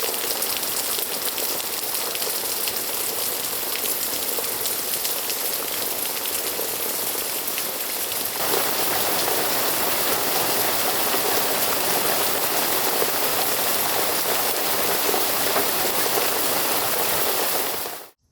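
Heavy summer cloudburst: a dense, steady downpour of rain that gets louder and fuller about eight seconds in, then cuts off abruptly just before the end.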